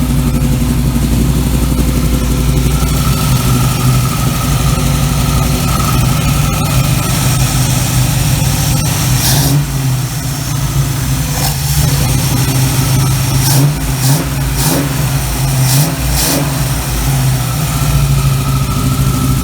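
Small-block Chevy 350 V8 running on its freshly rebuilt Holley 1850-2 carburetor. It idles steadily, and the engine speed rises and falls a few times in the middle.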